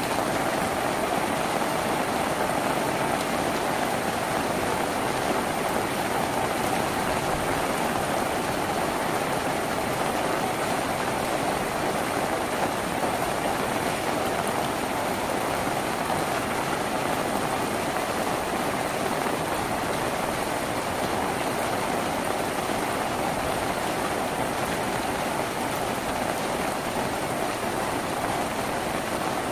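Rain falling steadily on a tin roof: a dense, even patter with no breaks.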